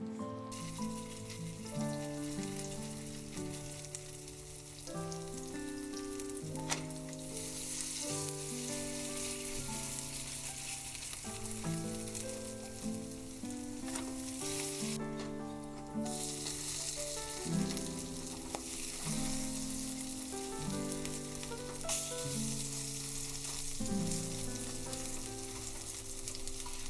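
Mung bean pancakes frying in oil in a pan, with a steady sizzle that drops out briefly about halfway through. Soft acoustic guitar music plays underneath.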